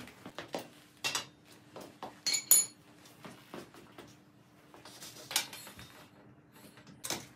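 Steel tubing and pipe-bender parts being handled: scattered metal knocks, two sharp ringing clinks about two and a half seconds in, a scrape a little after five seconds, and another knock near the end.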